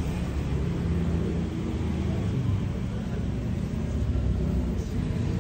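A steady low rumble of outdoor background noise, with no sharp events.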